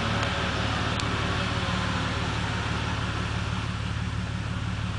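Suzuki Samurai's four-cylinder engine running steadily as the jeep pushes through deep water in a muddy trough, with water sloshing and splashing around it.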